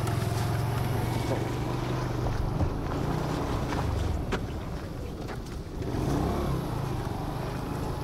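Motorcycle engine running steadily while the bike is ridden on a dirt track, with a sharp knock about two and a half seconds in and the engine note rising and falling briefly near six seconds.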